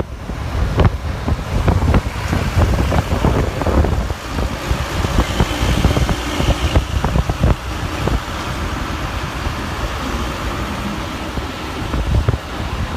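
Roadside traffic noise: motor vehicles passing on a road, with a steady rumble and noise.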